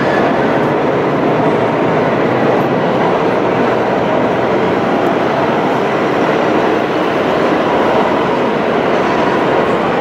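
Steady, even din of a busy indoor exhibition hall, with no single event standing out.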